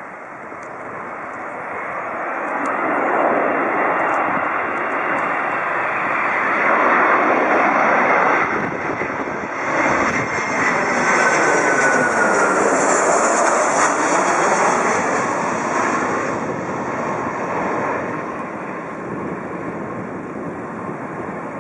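Twin-engine jet airliner on landing approach passing low overhead: the jet engine noise builds, is loudest for several seconds as it goes over, with a short whine that drops in pitch, then fades away.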